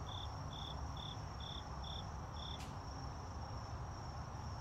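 Crickets: one chirps in short, even, high pulses about twice a second and stops about two and a half seconds in, over a steady, higher-pitched insect trill.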